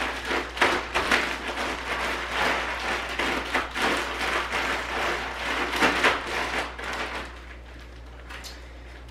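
Plastic zip-top bag crinkling and cashews rattling and shifting inside as the bag of nuts is kneaded and tossed to coat them in agave syrup. The rustling drops to a faint crackle about seven seconds in.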